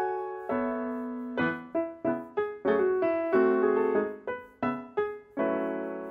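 Background piano music: a gentle melody of struck notes and chords, each note fading after it is struck.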